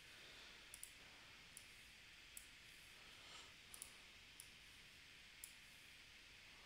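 Faint computer mouse clicks, about eight over several seconds and two of them quick double clicks, over a low steady hiss.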